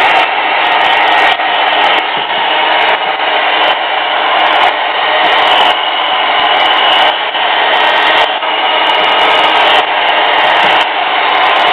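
Hand-held hair dryer blowing steadily, drying fresh acrylic paint on a carved wooden figure. Its level wavers slightly as it is moved about.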